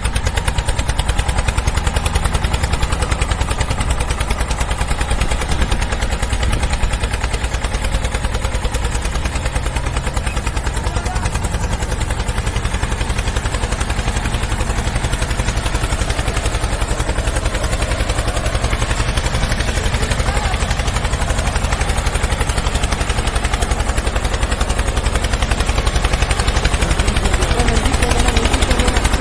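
Engine running steadily with a rapid, even pulse.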